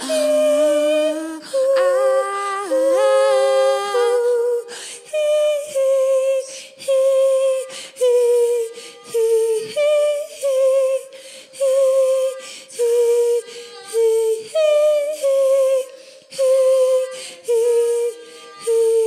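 A woman's voice singing a cappella: layered vocal harmonies at first, then short held notes with vibrato, one phrase about every second with brief gaps between.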